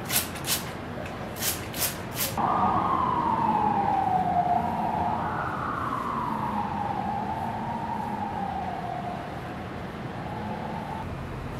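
A few quick spritzes from a pump spray bottle in the first couple of seconds, then an emergency-vehicle siren from the street wailing slowly down and up in pitch, stopping near the end.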